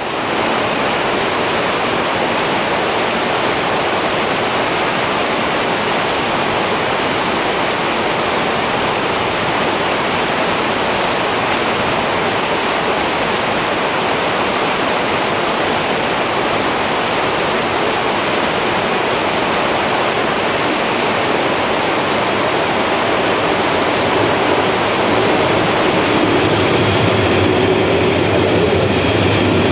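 Mountain river rushing over boulders in a narrow gorge, a loud, steady rush of white water. Near the end the running noise of a metre-gauge BVZ electric train joins in, with a low hum and a high steady whine.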